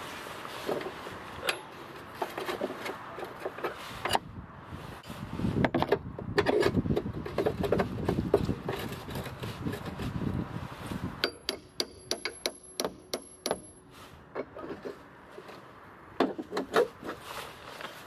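Steel jack drive bar and wrench clinking and rattling as they are handled and fitted to the minivan's spare-tire hoist. A little past the middle comes a quick run of sharp, ringing metal clicks.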